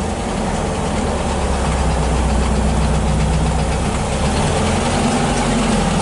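1974 VW Thing's air-cooled 1.6-litre flat-four engine running at low revs as the car is backed up in reverse; the engine note rises briefly near the end.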